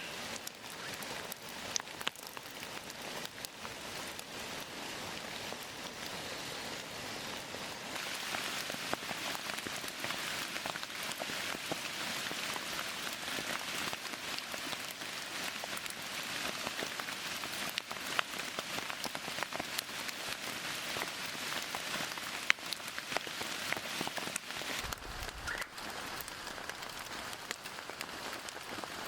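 Steady rain falling, a continuous hiss dotted with many small drop hits and a few louder single drips.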